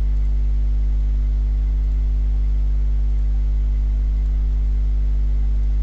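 Steady electrical mains hum in the recording, a low buzz with a row of overtones above it that does not change.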